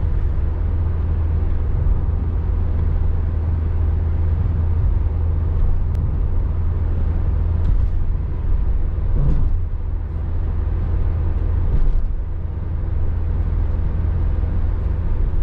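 Steady cabin noise of a Toyota Rush SUV driving at highway speed: an even low rumble of engine and tyres on the road with a haze of wind and road noise, broken only by a few faint ticks.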